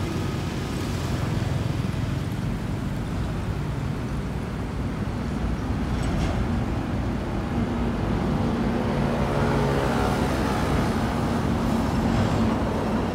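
Steady road traffic noise with a vehicle engine's low drone, and a faint rising whine about nine seconds in.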